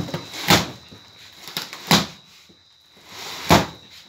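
Plastic packing strap around a cardboard carton being cut and pulled off, giving three sharp snaps about a second and a half apart, with rustling cardboard handling between them.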